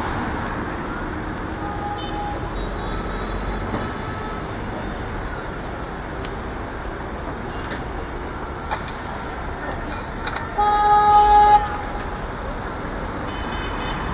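Steady road traffic noise from cars passing through a city intersection. A vehicle horn gives one loud blast of about a second, about three-quarters of the way in, with a shorter faint toot early on.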